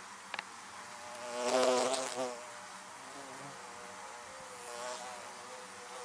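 Honeybees buzzing around their hives, a steady hum of many wings with wavering pitch. The buzz swells louder for about a second near the middle, then settles back.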